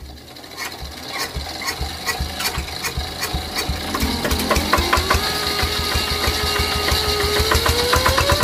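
Yanmar TF 65 single-cylinder diesel engine starting up, its firing beats quickening as it picks up speed. From about halfway in, the fitted 'nging' whine comes in as a steady whine that rises in pitch near the end as the engine speeds up.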